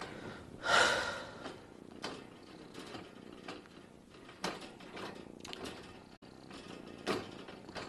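Faint purring from a weak, sick tabby kitten, with soft rustles and a brief louder rustle about a second in.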